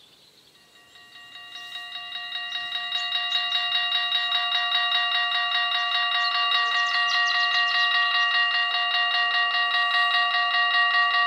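Level-crossing warning bells ringing in rapid, even strokes, swelling in loudness over the first few seconds and then holding steady. This signals that the crossing is closing for an approaching train while the lights flash and the barriers lower.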